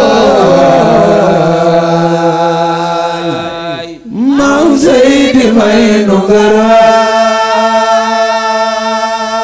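A single voice singing a long, ornamented line of a Wolof religious praise chant, holding notes and sliding between pitches, with a brief break about four seconds in. A steady low tone sounds underneath.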